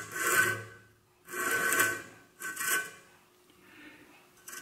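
Bench grinder's new grinding wheel scraping against a wooden stick held to it, in four or five separate strokes of under a second each, one of them faint: the stick catches the wheel where it runs out, showing slight radial run-out.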